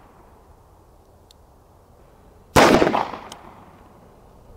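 A single shot from a Smith & Wesson 442 J-frame revolver firing a .38 Special full metal jacket round, about two and a half seconds in, its report dying away over about a second.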